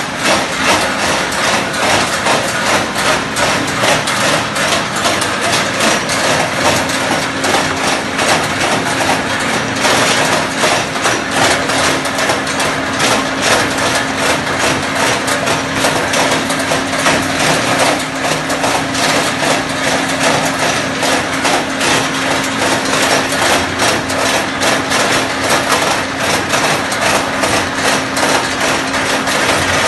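Areca nut dehusking machine running: a steady motor hum under a dense, continuous rattle and knocking as dry nuts are beaten and husked inside.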